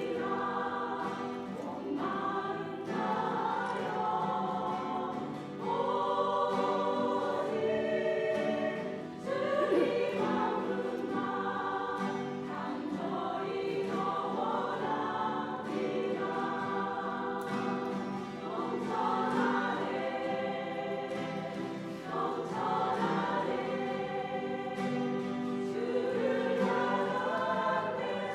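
Church choir singing a sacred anthem in harmony, holding long chords that shift every second or two.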